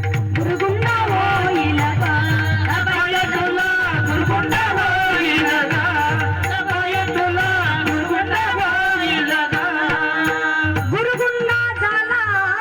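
Bharud folk music: a drum beat with a wavering melody over steady held notes.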